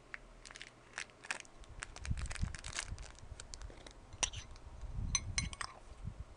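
Crinkling, crackling and tearing of packaging as a cardboard chocolate advent calendar door is pushed open and the wrapped chocolate inside is handled, with a string of sharp clicks and a few low handling bumps.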